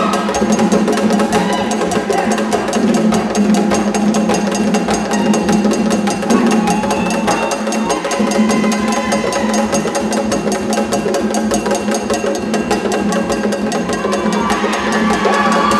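Haitian drum ensemble playing a fast, steady rhythm: hand drums with a sharp clicking stick pattern on top.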